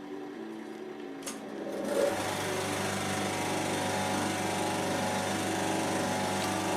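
Hydraulic press pump motor starting up: a click about a second in, then about two seconds in the motor comes on and runs with a steady, louder mechanical whir over a low hum.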